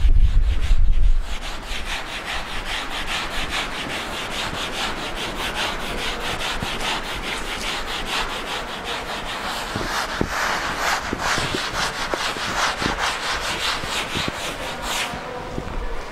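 Chalk blackboard being wiped with an eraser: rapid back-and-forth rubbing strokes, about four a second, that stop about a second before the end. A low rumble comes in the first second.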